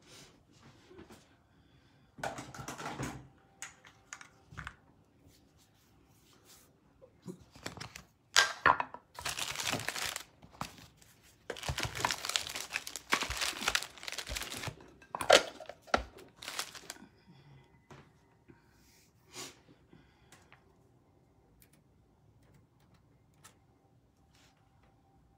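Plastic packaging crinkling and rustling in several bursts, loudest in the middle, with a few sharp knocks, as flat metal discs in clear plastic sleeves are handled and lifted off the table.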